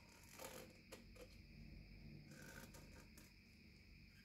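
Near silence: faint room hum with a few faint light clicks and scratches in the first second or so, from a pen and a metal gun part being handled on a wooden stock blank.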